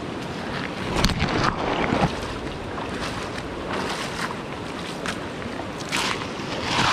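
Shallow river running over a gravel and cobble bed, a steady rush of water with a few short louder sounds about one, two and six seconds in.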